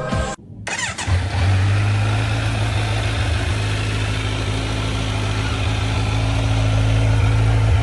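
Kawasaki Z900's inline-four engine idling steadily through its stock exhaust, coming in about a second in.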